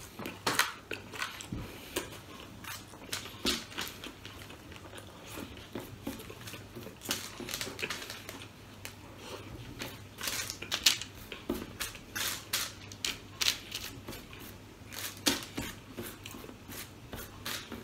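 Eating by hand: chewing and crunching, with mouth smacks and fingers picking food off the paper-lined table, heard as an irregular run of short, sharp clicks and crunches.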